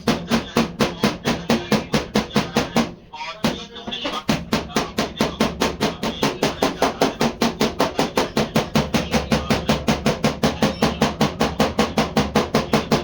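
Rapid, even hammer blows on car body sheet metal, about six strikes a second, with a brief pause about three seconds in.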